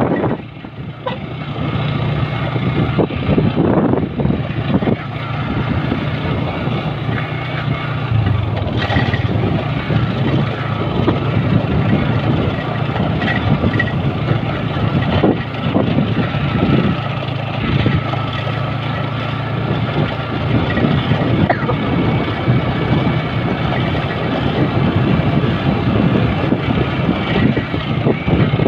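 Motorcycle engine running at a steady cruising speed, with tyre and wind noise from riding.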